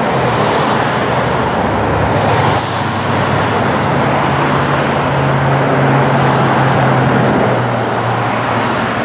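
Road traffic: cars, pickups and minivans driving past at close range, a steady noise of tyres and engines with a low hum under it.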